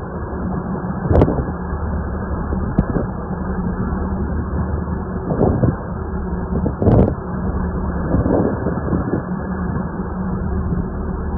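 Boat engine running steadily, a constant hum under wind and water noise, with a few short dull thumps. The loudest thumps come about a second in and again about seven seconds in.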